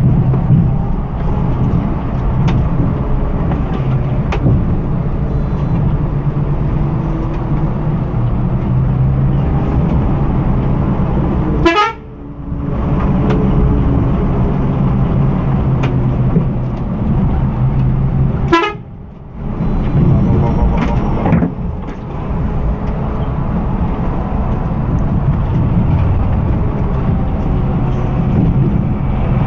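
Scania diesel engine running under load, heard from inside the cab, with horn toots. The engine sound drops sharply twice for about a second before picking up again.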